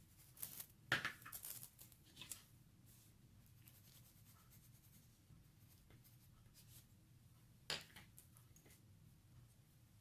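A few short scratching strokes of a drawing tool on paper, clustered in the first couple of seconds with one more later, over faint room tone.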